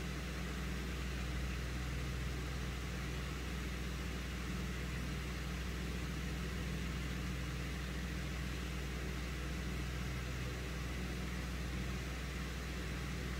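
A steady low mechanical hum with a hiss over it, unchanging, like a motor or fan running.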